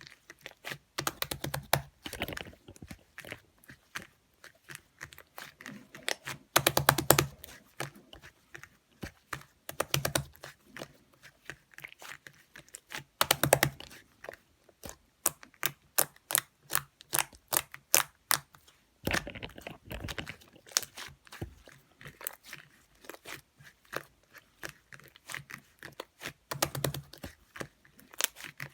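Slime being pressed, squeezed and stretched by hand, giving rapid clicking pops of trapped air bubbles with a few heavier, deeper presses scattered through.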